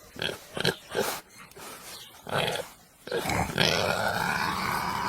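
Pigs grunting: several short, separate grunts, then a longer drawn-out grunting call from about three seconds in.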